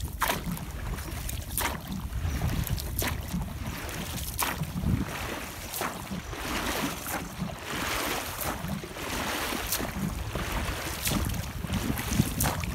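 Oars of an inflatable boat rowed hard and fast, each stroke a sharp splash about every second and a half, over steady wind rumble on the microphone.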